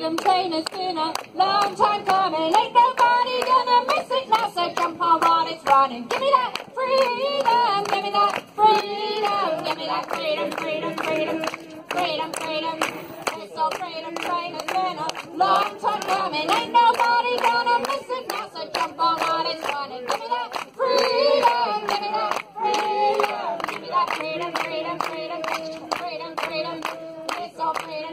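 Voices singing a song together while a crowd claps along in a steady beat.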